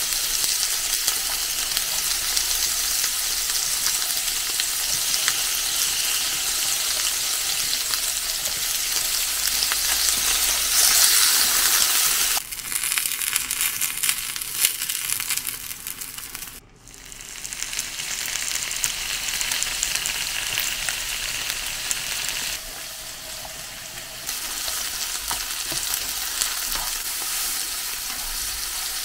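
Food frying in a hot pan, a dense, steady sizzle. It briefly drops away about two-thirds of the way through, then resumes.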